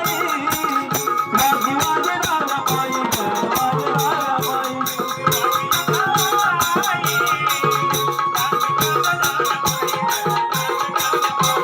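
Marathi folk devotional music: a wavering melody line over fast, dense percussion with a steady shaker-like rattle.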